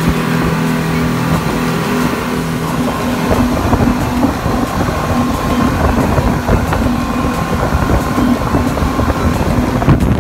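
Speedboat at speed on twin Yamaha 250 outboard engines: a steady engine drone that, about three seconds in, fades under a rough rush of water and wind buffeting the microphone.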